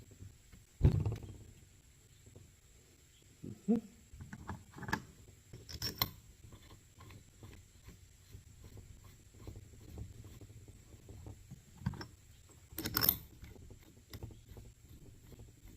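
Scattered knocks and clicks of small parts being handled and fitted while a power steering pump is reassembled. The heaviest thump comes about a second in, and another cluster of knocks comes near the end.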